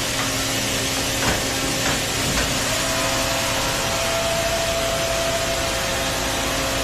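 Hartford X-3240 double column CNC machining centre running: a steady hiss and hum, with a higher whine that comes in about three seconds in and stops near six seconds, and a couple of light knocks early on.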